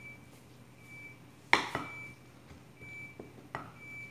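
Wooden spatula stirring a carrot-and-egg mixture in a glass mixing bowl. It clinks sharply against the glass twice about a second and a half in, and more lightly once near the end.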